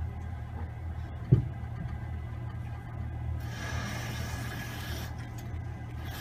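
Grundfos UPS 25-80 central-heating circulating pump humming steadily, a pump that has run dry after the system lost pressure. A single sharp knock comes about a second in, and a hiss joins from about halfway.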